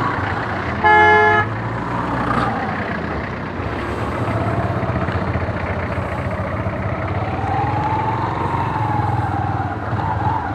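Yamaha YBR-G's single-cylinder engine running at low speed in slow traffic, with a wavering engine note rising and falling. A vehicle horn sounds once, briefly, about a second in; it is the loudest sound.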